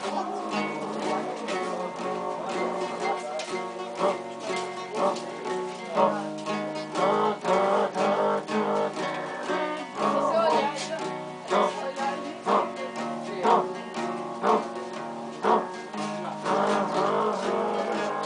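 Music: guitar being plucked and strummed over sustained notes, with a regular beat of sharp attacks.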